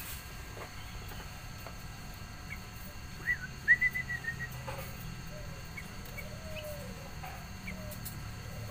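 A small bird giving a quick run of short, high chirps about three seconds in, followed by a few fainter, lower notes.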